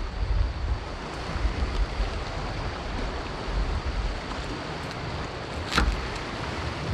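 Steady wind and sea surf, with wind rumbling on the microphone, and a single sharp click about six seconds in.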